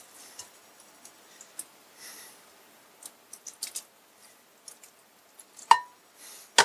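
Faint, scattered handling noises of fingers scooping wet diced tomatoes out of a tin can and dropping them onto a layer in a glass dish, with one sharp clink that rings briefly about five and a half seconds in.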